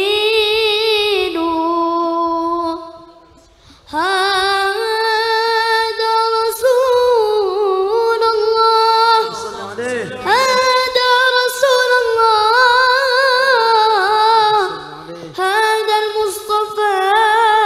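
A boy singing a shalawat solo and unaccompanied into a microphone, in long melismatic phrases with held, wavering high notes. The singing breaks off briefly about three seconds in, then resumes.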